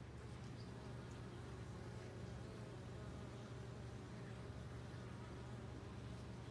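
Bumblebees buzzing, a faint steady hum, as they crawl in the pollen of a sweetbay magnolia flower and fly up from it.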